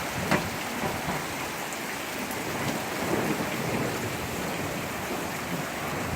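Heavy rain pouring down steadily, with one sharp tap of a drop or hailstone striking something a moment after the start.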